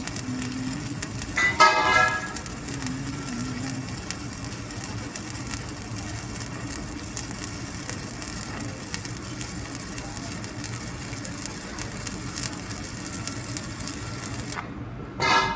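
Stick-welding (arc-welding) arc crackling and sizzling steadily with dense fine crackles, then cutting off about a second before the end. A short, loud pitched tone sounds about two seconds in, and another right at the end.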